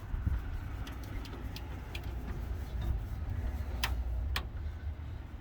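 Scattered light clicks of hand tools being handled, with two sharper clicks about four seconds in, over a steady low rumble.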